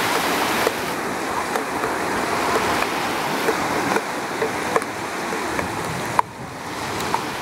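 Small sea waves breaking and washing over the shallows: a steady rush of surf with faint small splashes, dipping briefly about six seconds in.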